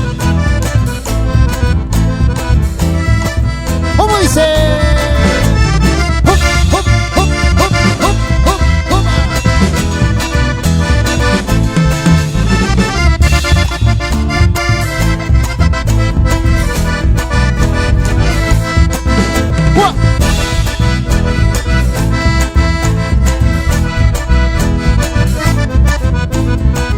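Chamamé band playing an instrumental passage led by accordion, with a steady dance beat in the bass and drums.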